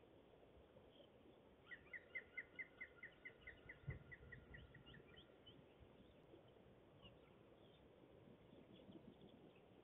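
A faint bird call: a run of about fifteen short, even notes at about five a second, fading out. A single low thump comes near the middle, and a few faint chirps follow.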